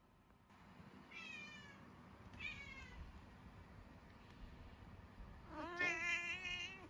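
Munchkin cat meowing: two short mews that fall in pitch, then a longer, louder meow held at an even pitch near the end.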